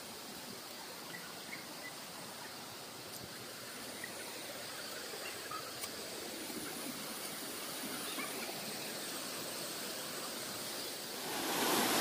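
Rushing water of a waterfall, a steady hiss that grows slowly louder and then rises sharply about a second before the end as the falls come close.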